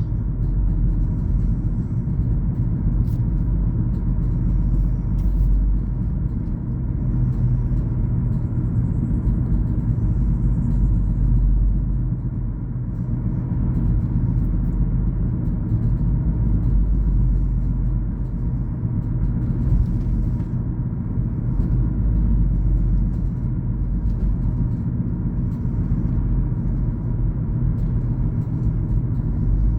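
Car driving along at steady speed: an even low rumble of engine and road noise.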